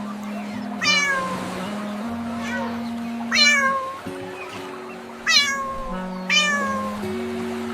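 Cat meowing four times, each meow short and falling in pitch, over steady background music.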